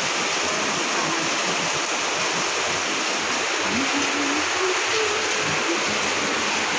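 Heavy rain pouring down as a steady, dense hiss.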